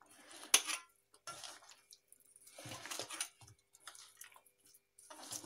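A hand mixing raw rohu fish pieces into a thick spice-and-cornflour marinade in a steel bowl: wet squelching in irregular bursts, with a sharp tap against the bowl about half a second in.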